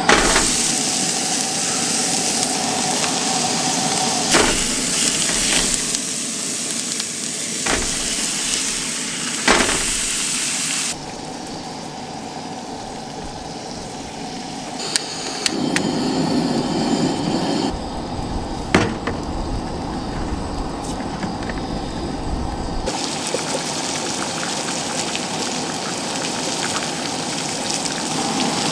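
Steak sizzling in a frying pan on a camp stove, a steady crackling hiss, with a few sharp clicks along the way. It comes in several spliced takes, so the level jumps abruptly a few times.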